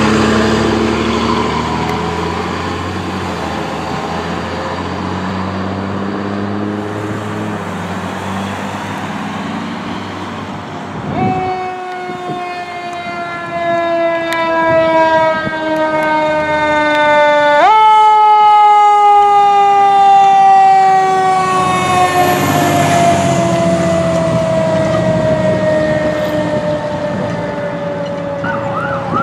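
Fire engine running Code 3: heavy engine noise at first, then about a third of the way in its siren comes on with a loud wail that winds slowly down in pitch, jumps back up a little past halfway and winds down again.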